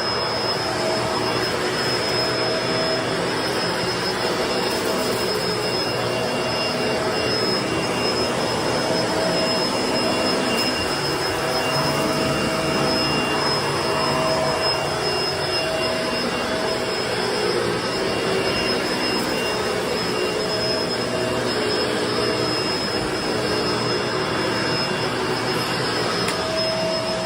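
Vacuum cleaner running steadily over carpet: a constant rush of air with a steady motor whine.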